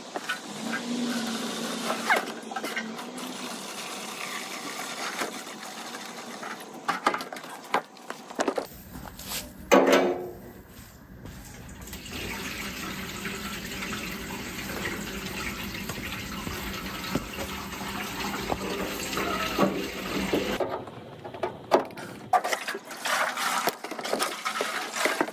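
Liquid pouring out of a steel car fuel tank into a plastic jug, then a garden hose running water into the tank to rinse out the muriatic acid, with one loud thump about ten seconds in. Near the end, water sloshes and knocks inside the tank as it is tipped and shaken.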